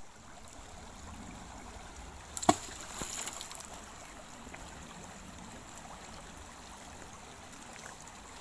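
River water flowing steadily, with one sharp click about two and a half seconds in.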